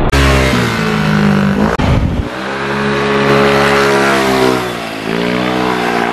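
Motor scooter engines passing through a bend, loud and one after another, the sound changing abruptly between riders. The engine note holds steady, dips about five seconds in as the rider eases off, then climbs again as the scooter accelerates out of the corner; one grey maxi-scooter is fitted with an aftermarket exhaust.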